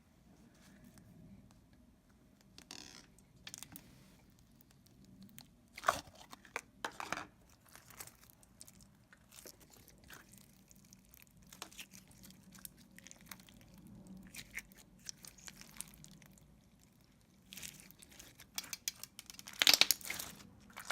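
Fishbowl-bead slime being squished and stretched by hand, giving scattered small clicks and crackles as the beads pop and shift. A few louder crackles come about six to seven seconds in, and a dense run of them just before the end.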